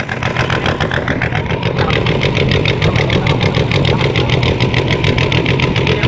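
Boat engine running steadily under way, with a fast, even chugging.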